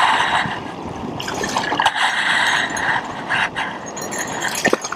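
Shallow ocean surf washing and splashing close by as foam runs over the sand, with a couple of short sharp knocks.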